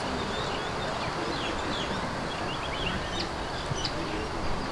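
Birds chirping, many short calls scattered throughout, over a steady rushing background noise.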